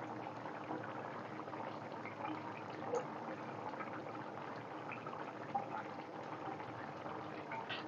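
Fish and broccoli curry simmering in a frying pan: a steady faint bubbling, many small bubbles popping in the thick sauce, with a slightly louder pop about three seconds in and another past halfway.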